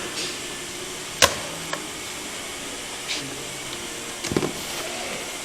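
A single sharp click about a second in, then a smaller click and a few fainter knocks and rustles over a steady background hiss, typical of packaging being handled and cut open.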